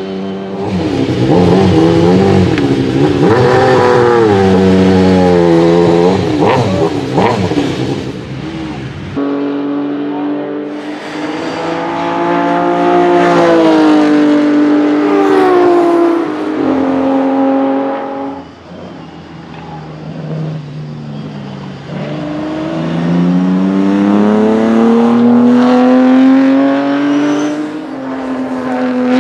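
A racing engine is blipped and revved hard for the first several seconds. After an abrupt change, a Ferrari 250 GTO's V12 accelerates on track, its pitch climbing and dropping sharply at each gear change, fading briefly and then climbing again as the car comes past.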